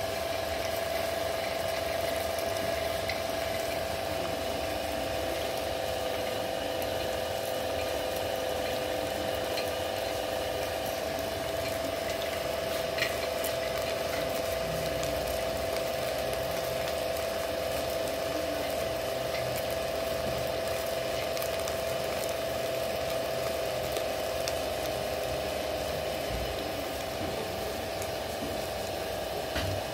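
Electric stone mill running steadily, its turning millstone grinding almonds into paste, with an even motor hum holding one steady tone. A single light click comes about a third of the way through.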